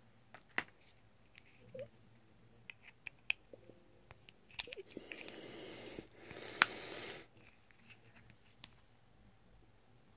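Plastic parts of an Opel flip-key remote shell being handled: scattered small clicks and taps, a stretch of scraping and rubbing of plastic in the middle, and one sharp click about two-thirds through.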